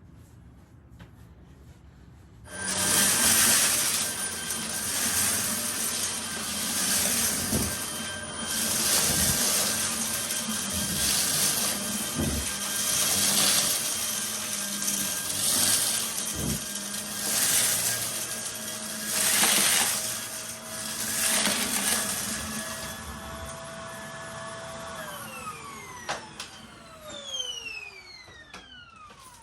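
Vacuum cleaner switched on about two seconds in and run with a steady motor whine that swells and eases every second or two as it is pushed back and forth. Near the end it is switched off and the motor winds down with a falling whine.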